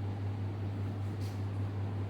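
Workshop room tone: a steady low hum with a faint hiss, and a brief faint rustle just over a second in.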